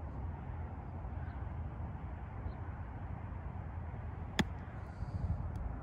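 A 60-degree wedge strikes a golf ball on a short chip shot: one sharp click about four and a half seconds in, over a steady low background rumble.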